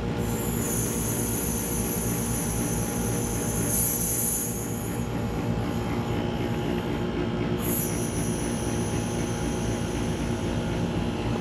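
Refrigerant hissing as it rushes from the charging hose into an evacuated air-conditioning system, breaking the vacuum to weigh in the factory charge. The high hiss fades about five seconds in and starts again near eight seconds, over a steady low hum.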